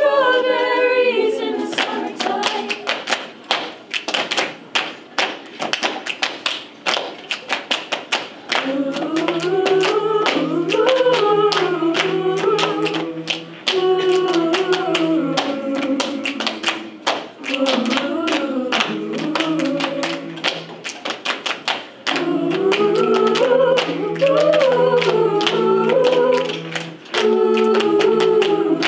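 A cappella choir body percussion: rhythmic hand claps and slaps on chests and laps. From about eight seconds in, sustained sung chords over a held low note join the percussion, breaking off briefly a few times.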